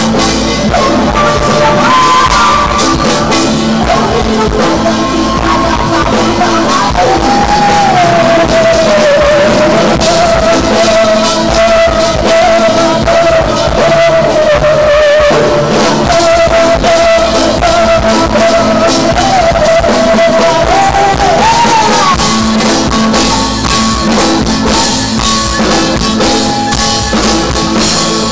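A live band playing Korean fusion music on acoustic guitar, Korean zithers and drum kit. A long, smooth melody line is held over the band from about a quarter of the way in until about three-quarters of the way through.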